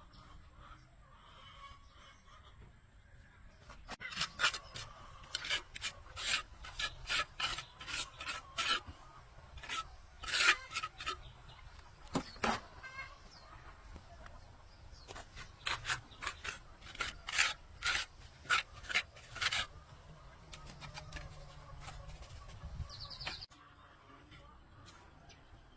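Repeated scraping strokes, about two a second, in two runs with a pause of a few seconds between them.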